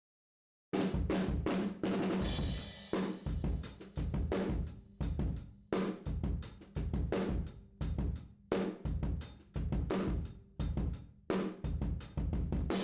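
Acoustic drum kit playing a steady beat, heard through a single mono room microphone, a Neumann U47 squashed by an 1176 compressor in all-buttons-in mode. The kit comes in about a second in, after digital silence.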